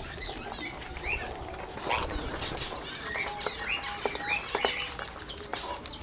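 A flock of Indian ringneck parakeets making many short, rising chirps while they feed, over a patter of small clicks from beaks pecking at seed on the feeding trays.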